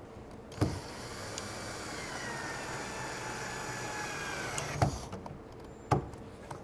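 Cordless drill driving a screw into treated lumber: the motor whines for about four seconds, its pitch sagging slightly as the screw goes in, then stops. Sharp clicks come as it starts and stops, and another knock follows about a second later.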